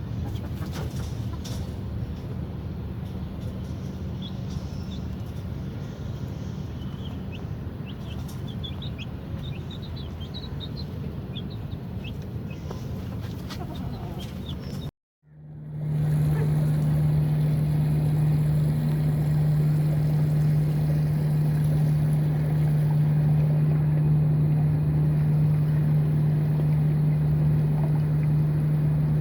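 A steady low mechanical hum with a rushing noise, and faint high bird chirps in the first half. About halfway through the sound cuts out for a moment and comes back as a louder, steadier low hum.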